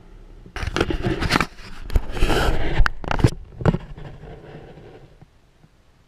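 Hand-held camera being handled: rubbing and scraping on the microphone with several sharp clicks, lasting about four and a half seconds before it dies away.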